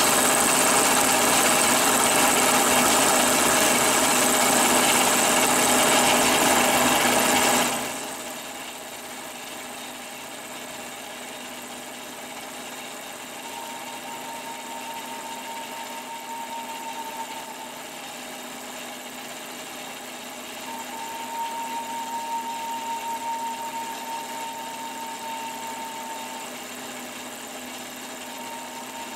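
Engine of a mobile boat travel lift running steadily, loud for the first eight seconds and then dropping suddenly to a much quieter steady running sound. A faint thin whine comes and goes in the second half.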